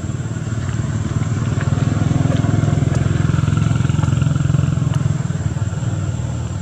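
Engine of a motor vehicle running close by with a fast, pulsing rumble. It grows louder toward the middle and eases off near the end, with a thin steady high-pitched tone above it.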